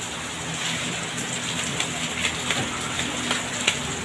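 Steady rain falling, with scattered short sharp taps throughout and a low steady hum underneath.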